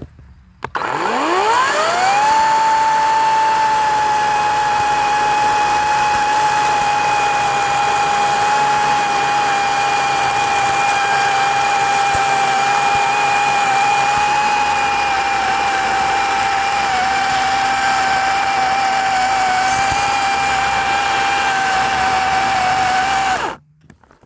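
Ego 18-inch battery chainsaw's brushless electric motor spinning up with a rising whine, then running at full speed on a steady high whine with slight dips in pitch, and stopping suddenly near the end.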